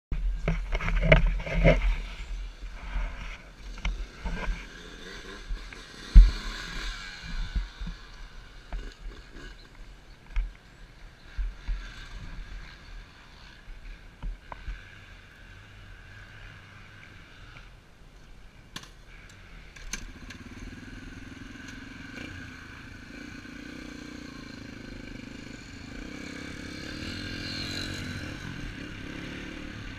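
Knocks and rubbing from a helmet-mounted camera being handled and adjusted, then, from about 20 seconds in, the Yamaha TT-R125's single-cylinder four-stroke engine running steadily as the pit bike rides slowly, rising a little near the end.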